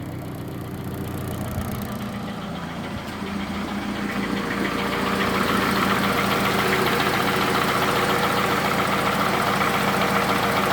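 Toyota 2AZ-FE 2.4-litre four-cylinder engine idling with a knock, growing louder about four to six seconds in, then steady. The mechanic puts the knocking down to the balance shafts at the bottom of the engine and judges the pistons and rings worn out.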